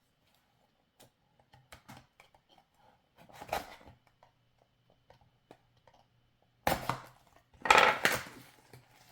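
Hands handling a Happy Meal toy's packaging: light clicks and rustles, then two louder bursts of crinkling near the end as the box or its plastic wrapper is worked open.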